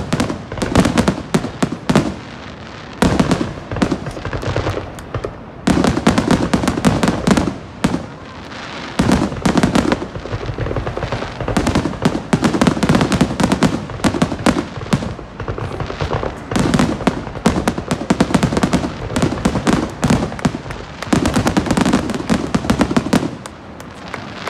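Aerial fireworks shells bursting in rapid, dense volleys of bangs and crackles. The volleys are separated by short lulls of about a second.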